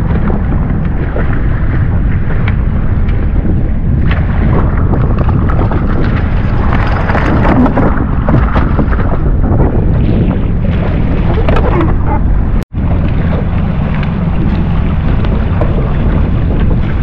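Strong wind buffeting the microphone, with water sloshing and splashing at the side of a jet ski while a tuna is brought alongside. The sound cuts out for an instant about two-thirds of the way through.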